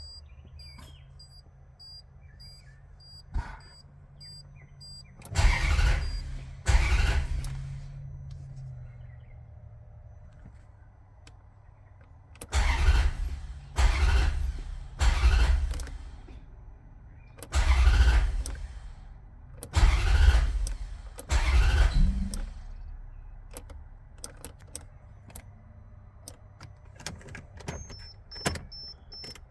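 Engine being cranked by its starter in eight short bursts of about a second each, in three groups, without settling into a run: a hard-starting engine. A pulsing high beep sounds early on, and a steady high tone comes in near the end.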